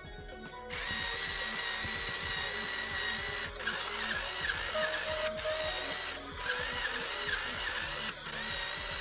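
Barbie Princess Adventure toy horse playing tinny music from a Barbie movie through its small speaker, starting about a second in, with a small motor whirring as the horse dances.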